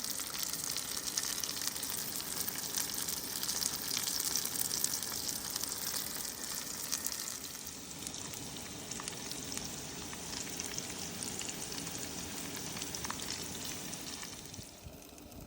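Sausage sizzling and crackling in a frying pan, a dense hiss full of fine pops that thins out near the end.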